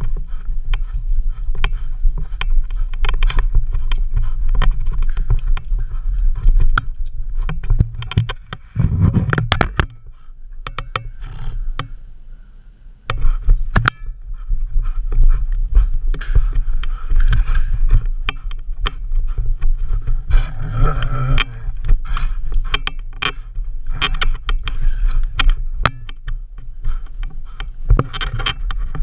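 Rubbing and knocking noise from a GoPro carried in a dog's mouth on a chew toy: a steady low rumble broken by many sharp knocks and rattles as it is jostled, easing off briefly a little before the middle.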